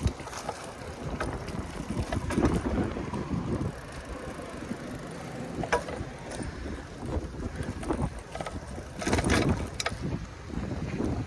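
A bicycle rolling over wet pavement: a steady noisy rush of tyres and wind on the microphone, with occasional clicks and knocks from the bike. The rush swells in gusts, loudest about nine to ten seconds in.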